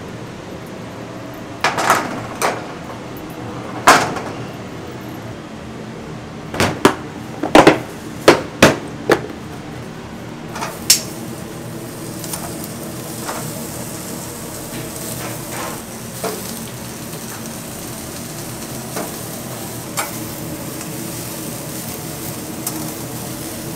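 Heavy steel grill grate clanking against the grill frame as it is lifted and set down: about a dozen sharp metal knocks in the first ten seconds, loudest around four and eight seconds in. After that come a few light taps over a steady low hum.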